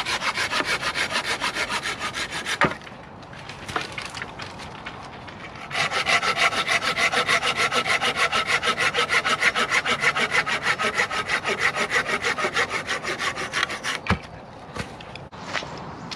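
Hand saw cutting through a green ash pole in fast, even back-and-forth strokes, about five a second. A short first run of sawing ends in a sharp knock a little under three seconds in, and after a pause a longer steady run of about eight seconds follows.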